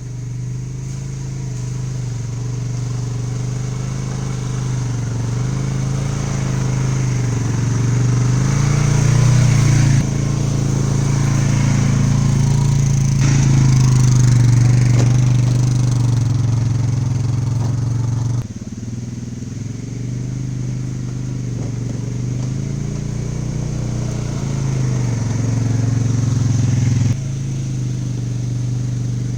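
ATV engine running under way, its pitch rising and falling as the throttle changes, with sudden jumps in sound about a third and two-thirds of the way through and again near the end.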